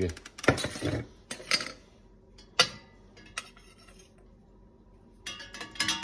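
Metal kitchenware knocking and clinking as a coffee can, a metal measuring scoop and a percolator basket are handled. There are several knocks and a sharp click in the first few seconds, a pause, then a cluster of ringing metallic clinks near the end as ground coffee is scooped into the percolator.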